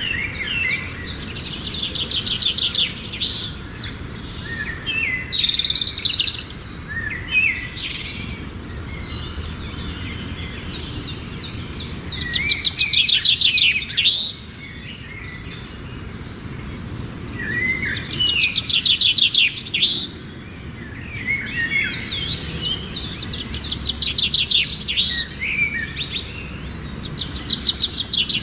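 Songbirds singing and chirping, with rapid trills that come again every few seconds over a faint steady outdoor background.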